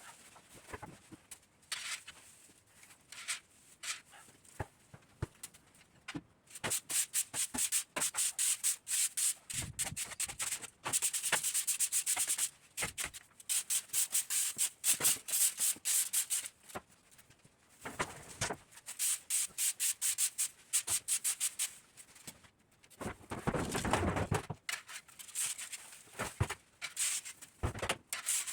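Quick, repeated scraping strokes of a hand tool raking old hay across the pen floor, coming in spells of several seconds with pauses, and a couple of duller thumps.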